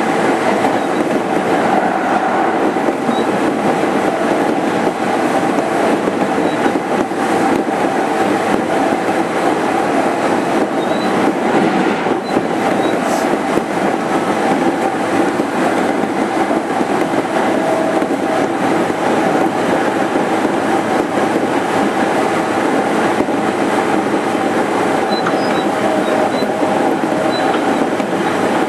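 Running noise inside a motor car of a JR East 205 series 5000 subseries electric train at a steady speed. Wheels rumble on the rails, with a steady hum from the traction motors and gears that neither rises nor falls.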